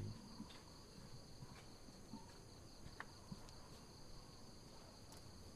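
Near silence with a faint, steady high-pitched insect drone, like crickets or cicadas, and a few soft ticks.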